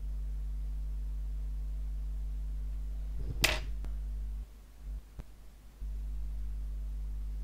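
Steady low electrical hum during hand soldering of a surface-mount diode on a circuit board. One brief sharp snap comes about three and a half seconds in, as the tweezers holding the diode come away. The hum then dips for about a second and a half, with a faint click in the middle.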